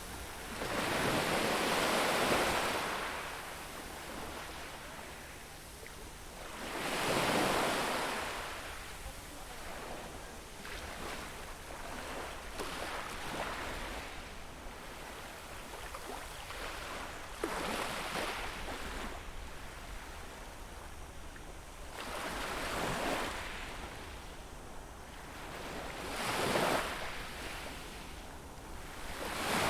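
Waves breaking and washing on a beach shore, a louder surge of surf every few seconds, about six in all, over a steady wash of water.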